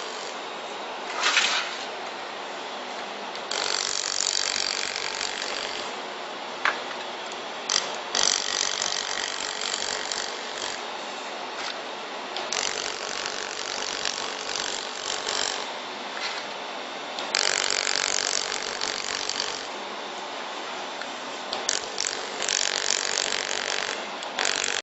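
Handheld fiber laser welder working metal sheet in bursts of a few seconds, each a crackling hiss that starts and stops, five or so times, over a steady machine hum.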